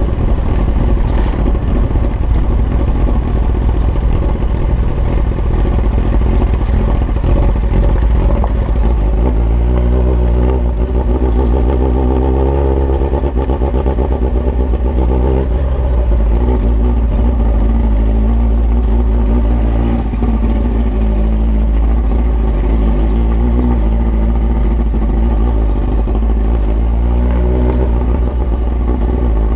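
Kawasaki ZX9 inline-four motorcycle engine running with its exhaust removed, under a steady heavy low rumble. From about nine seconds in the engine note rises and falls again and again as the bike is ridden through the gears.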